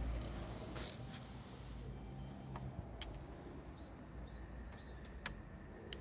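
Low rumble of wind on the microphone, with a few sharp light clicks, the loudest about five seconds in, and faint short high chirps of distant birds.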